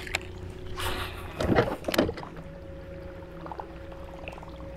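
Electric bow-mounted trolling motor humming steadily, with a few loud splashes about one to two seconds in as a hooked bass thrashes at the surface.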